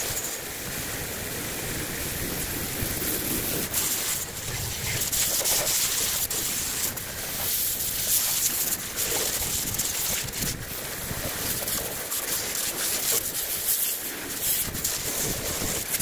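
High-pressure water jet from a pressure-washer wand spraying against the metal body of an old road-cutting saw and the wet ground: a steady hiss that swells and dips as the spray moves over the machine.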